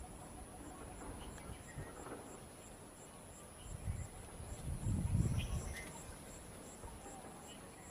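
Insects, crickets or similar, calling steadily: a high continuous trill with a regular pulsing chirp, a few times a second. A louder low rumble comes in for a couple of seconds around the middle.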